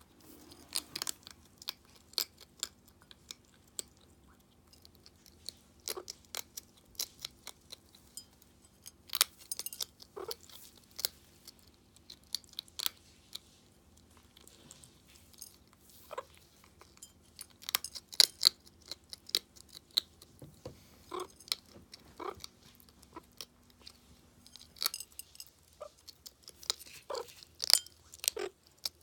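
A meerkat chewing dry food pellets: quick, irregular crunches and clicks, coming in flurries with short pauses between.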